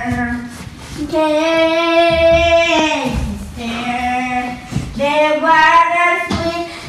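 A child singing without accompaniment, holding long notes and sliding from one pitch to the next.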